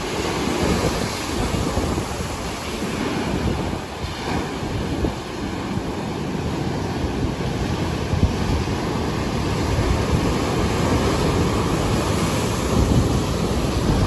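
Rough sea surf breaking and washing in white foam, a continuous rushing of water that swells and eases slightly, with wind buffeting the microphone.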